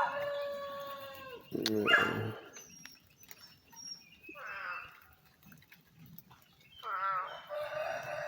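Rooster crowing. One crow's long held note ends about a second in, and another crow starts about seven seconds in. A short bark-like call sounds about two seconds in.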